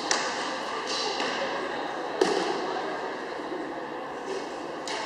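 Arrows thudding into straw target bosses, several sharp hits that echo around a sports hall, the loudest about two seconds in, over the low murmur of the hall.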